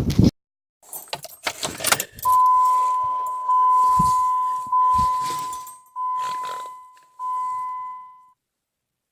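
Keys jangling, then the Dodge Ram's dashboard warning chime sounds five times: the same steady high ding about every 1.2 s, each fading before the next, as the ignition is switched on with the battery reconnected.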